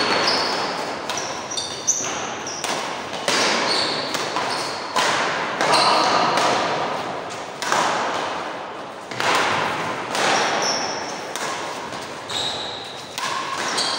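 Badminton doubles rally in a large echoing hall: repeated sharp racket strikes on the shuttlecock and footfalls, each ringing on in the hall, with short high squeaks of shoes on the court floor.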